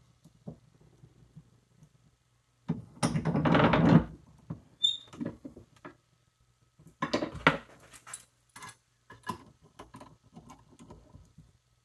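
Knife blade clamped in a bench vise being bent by hand pressure: a loud strained creak lasting about a second and a half, a brief high squeak, then a second, shorter creak. This is followed by light metal clicks and taps as pliers are put to the knife.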